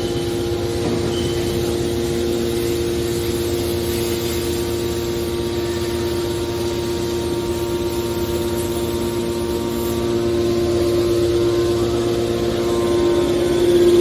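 Steady hum of running machinery, holding one strong tone, growing a little louder about ten seconds in.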